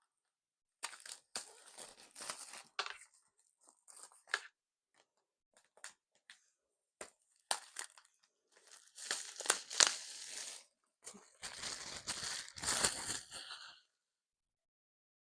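Packaging being torn open and handled during an unboxing: irregular ripping and crinkling with sharp clicks between, the longest and loudest tearing in the second half.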